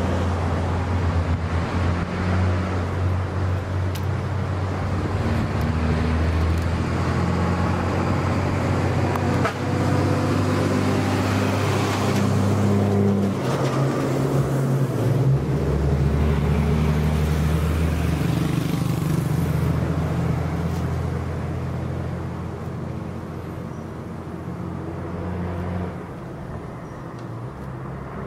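Diesel engines of stopped, loaded Hino trucks idling with a steady low hum. The pitch changes about halfway through and the sound fades in the last few seconds, with other road traffic passing.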